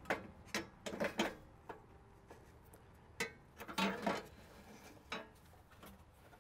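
Irregular metal knocks and clatter as a small finned cooler core is slid and fitted back into its slot in an LS MT573 tractor's cooling pack by hand. The knocks come in uneven clusters, loudest about a second in and again around four seconds.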